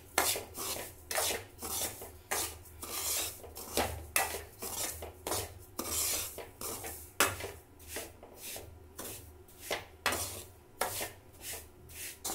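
A metal spoon scraping and stirring dry semolina around a metal kadai as it is dry-roasted: a continuous run of rasping strokes, roughly two a second. A low steady hum runs underneath.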